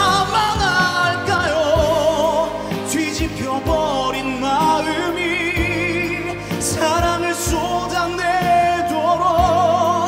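A male singer singing a Korean pop ballad live into a handheld microphone over instrumental accompaniment, holding long notes with a strong vibrato.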